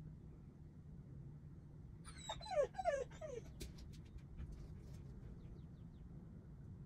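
Husky whining in a short burst of 'talking': a few quick whimpers that fall in pitch, about two seconds in, over a low steady hum.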